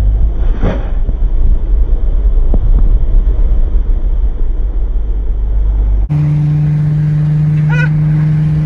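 Honda S2000 driving with the window down: loud, gusty wind buffeting and road rumble, with a thump about a second in. About six seconds in it cuts suddenly to a steady engine drone heard from the cabin, with a short rising squeak near the end.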